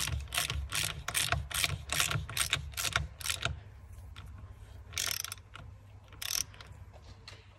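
Socket ratchet wrench clicking as a gearbox-mount sleeve nut is run down: a steady run of pawl clicks, about three a second, that stops about three and a half seconds in, then two more single clicks a little later.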